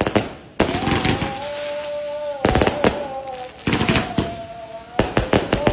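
Fireworks and firecrackers going off in rapid strings of sharp bangs, several times over, with a steady, slightly wavering tone running underneath.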